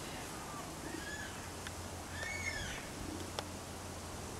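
Yellow-tailed black cockatoo giving two short, arched, wavering calls, about a second in and again midway. Two sharp clicks come in between.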